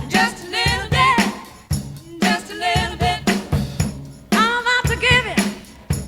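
Background music: a song with sung vocals over a drum beat.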